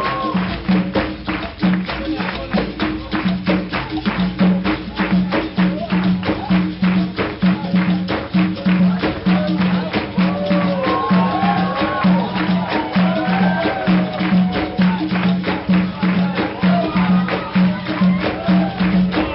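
Capoeira music: a pulsing low note over a fast, even beat of tambourine and rattle percussion, with voices rising and falling over it, mostly in the second half.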